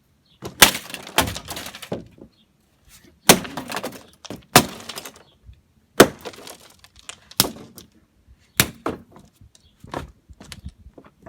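Hard blows smashing a vintage modem's cheap plastic casing: about eight strikes, roughly one every second or so, each a sharp crack followed by a brief clatter of breaking pieces.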